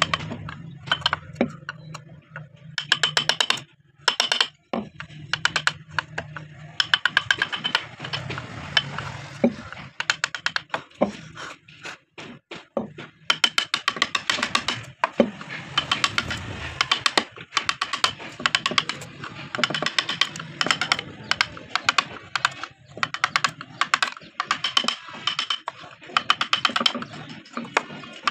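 Rapid light taps of a wooden mallet on a wood-carving chisel as it cuts leaf grooves in a wooden panel, several strikes a second in runs broken by short pauses about 4 and 12 seconds in.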